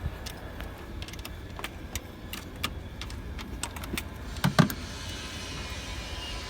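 Irregular metallic clicks and clinks of hand tools and engine parts being handled during engine work, with a louder knock about four and a half seconds in.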